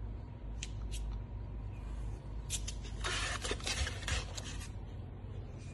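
Handling noise of a gloved hand moving the plastic case of a Micronics PF330 flowmeter: two light clicks in the first second, then about two seconds of rubbing and scraping, over a steady low hum.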